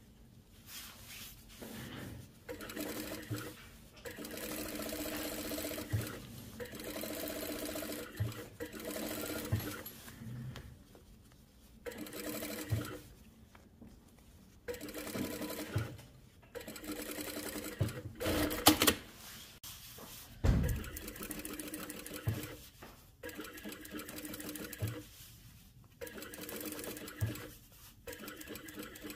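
Computerized industrial lockstitch sewing machine stitching through the hem of a padded jacket in stop-start runs of a few seconds, with a low knock at many of the stops.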